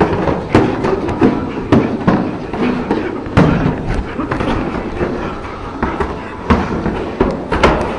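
Punches landing during boxing sparring: a string of sharp smacks and thuds at irregular intervals, with several strong hits in quick succession near the end.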